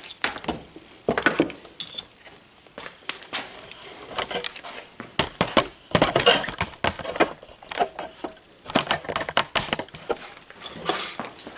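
Irregular clicks, taps and rattles from a homemade cigarette-lighter socket extension cable being handled: its plastic socket, wire and metal battery clips knocking about.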